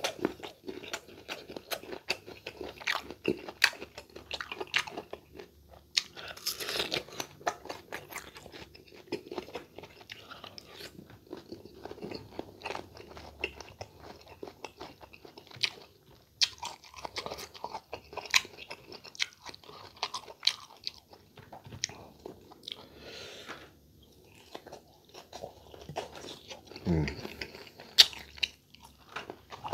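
Crisp bites and chewing of raw green mango slices coated in sauce, with many irregular crunches and wet mouth sounds.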